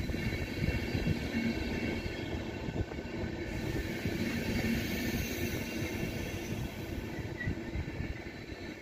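Intercity passenger coaches rolling slowly along the platform: a steady low rumble with irregular knocks and clicks of the wheels on the track.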